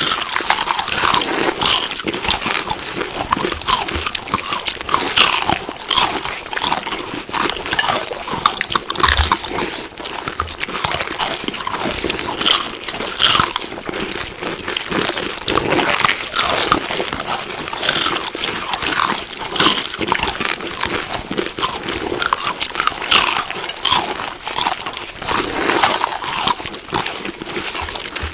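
Close-miked chewing of crunchy food: a steady run of crisp, crackling crunches from repeated bites.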